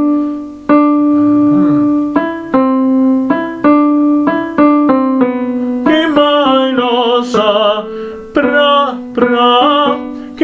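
Piano accompaniment playing a line of struck notes that each ring and fade; from about six seconds a man's singing voice with a wide vibrato joins over it.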